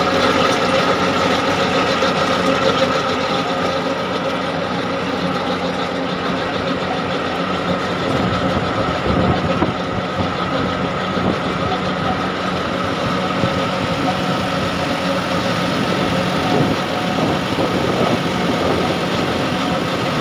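John Deere 5310 diesel tractor running steadily while powering a trolley-type trencher cutting a trench in soil, with a deeper rumble coming in about eight seconds in.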